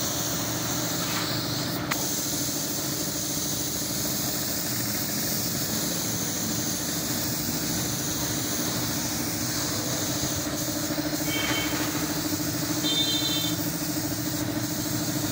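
Compressed-air paint spray gun hissing over the steady hum of its air compressor running.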